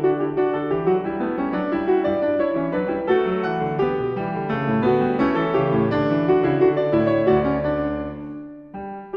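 Background piano music, a flowing melody over chords, that fades briefly near the end and starts again.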